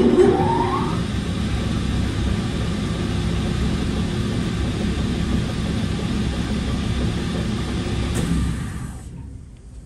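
Second head of a Timesavers Series 2200 dual-head wide belt sander starting up with a rising whine, then running steadily. A click about eight seconds in is the emergency stop, and the head's brake brings it to a halt within about a second.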